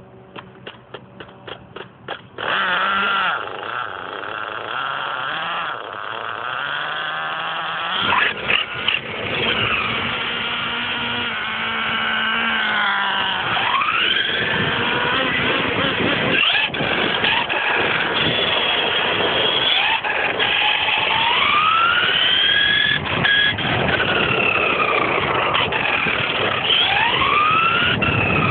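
Radio-controlled car motor: a series of short clicks for about two seconds, then the motor starts running loudly, and from about eight seconds in its high pitch rises and falls again and again as the car drives and accelerates.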